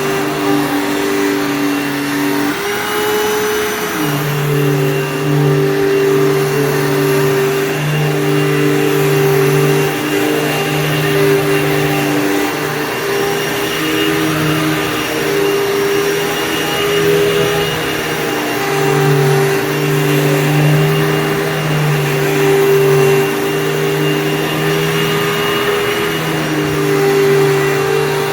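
Hoover Fold Away upright vacuum cleaner running steadily, its motor note shifting slightly up and down every few seconds.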